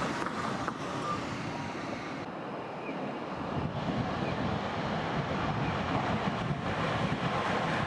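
Street traffic noise: a steady rush of passing vehicles, growing louder in the second half.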